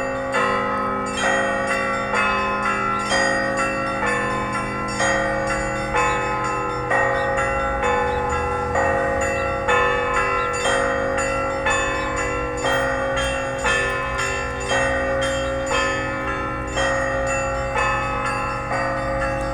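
Church bells ringing: several bells of different pitches struck in a continuous peal, a louder strike about once a second among quicker strikes, each tone ringing on under the next.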